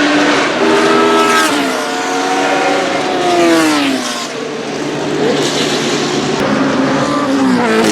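Cosworth DFV 3.0 V8 of an Arrows A4 F1 car running at high revs, with a quick upshift about a second and a half in, then its pitch falling steeply about three to four seconds in as it goes by, and running on at a lower note with another drop near the end.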